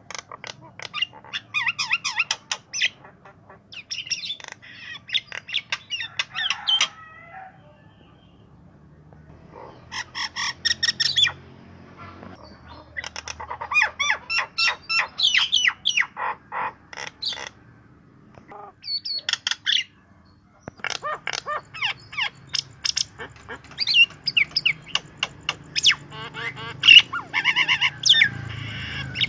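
Javan myna singing in loud phrases of rapid chirps, whistles and harsher squawky notes, broken by short pauses; its song is mimicry of canary, white-rumped shama and green leafbird.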